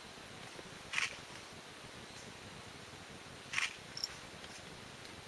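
Quiet outdoor ambience with a steady faint hiss, broken by two short rustling scrapes, one about a second in and another about two and a half seconds later.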